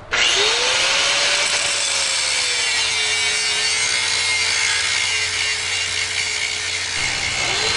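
Handheld angle grinder cutting metal, starting abruptly with a harsh grinding hiss; the motor's whine rises over the first second as it spins up, then holds steady, dipping and rising again near the end.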